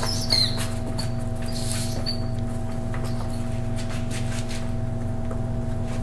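Air hissing out of a rubber coil-spring air bag in short spells as it is squeezed flat by hand, with a couple of brief high rubber squeaks, over a steady hum.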